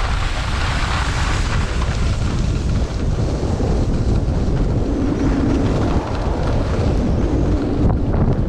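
Wind buffeting the camera microphone during a downhill ski run, a steady loud rumble, with the skis hissing and scraping over packed snow.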